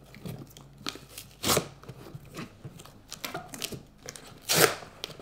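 Packing tape on a cardboard shipping box being cut and torn open, with scraping and rustling of the cardboard; two louder rips, about one and a half seconds in and near the end.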